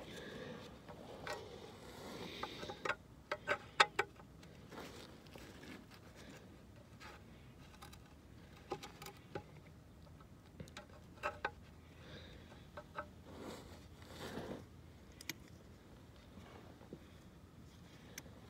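Scattered light clicks and taps with soft rustling, irregular rather than rhythmic, with a quick cluster of sharper clicks about three to four seconds in.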